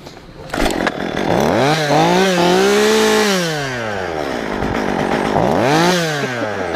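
A chainsaw engine revved up twice: the pitch climbs, holds briefly and falls back toward idle, then rises and drops again near the end.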